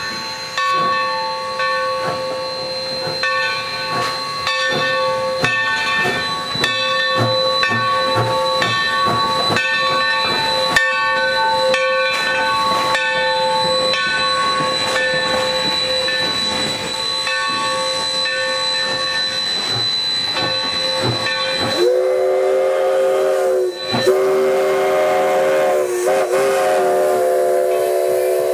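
The bell of a Mikado steam locomotive ringing steadily, struck over and over as the engine moves. Near the end the locomotive's steam whistle takes over: a chord of several notes at once, blown in a short blast and then a long one.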